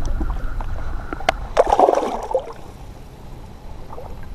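Shallow pond water sloshing around hands releasing a channel catfish, with a burst of splashing about a second and a half in.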